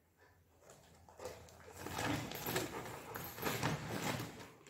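Golden retriever scrambling over a plastic rice sack on a tiled floor: crinkling of the sack and scuffing of paws, starting about a second in.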